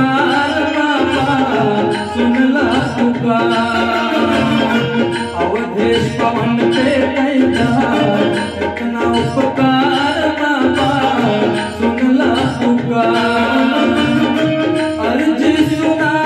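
Instrumental interlude of a devotional bhajan: a harmonium melody over a steady tabla-style rhythm loop from a Roland XPS-10 keyboard.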